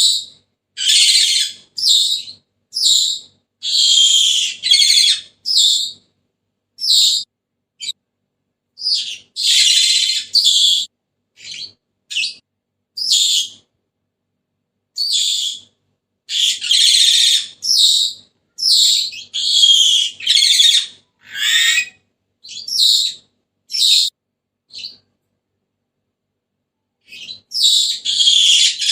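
Senegal parrot calling: a run of short, high-pitched calls, each under a second or so, repeated in quick clusters with brief pauses and a longer gap near the end.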